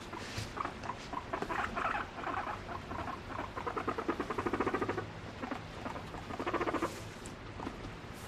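Abyssinian guinea pig purring while its head is stroked: runs of rapid, pulsed calls, loudest in a longer run about four to five seconds in and a shorter one near seven seconds. It is the contented, affectionate sound of a guinea pig enjoying being petted.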